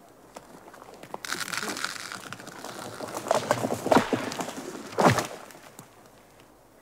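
A pine tree falling. Its branches rush and crackle through the surrounding growth with sharp cracks, and the trunk lands about five seconds in with a heavy thud, the loudest sound.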